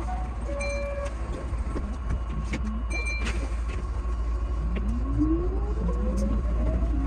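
Keihan 8000 series electric train pulling away and accelerating, heard from the driver's cab: a running rumble with a traction-motor whine that climbs steadily in pitch over the second half. Two short high beeps sound in the first few seconds.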